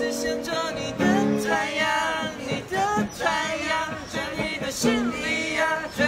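A man and a group of teenage boys singing a Mandarin song together, accompanied by an acoustic guitar.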